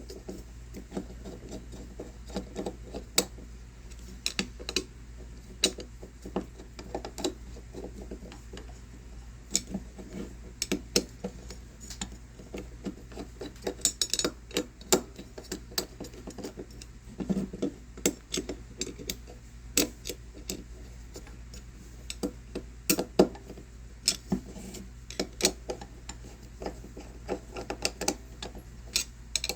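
Small metal screws being tightened by hand in turn on a metal adapter plate and carriage: scattered light metallic clicks and taps of the tool on the screws and plate, over a steady low hum.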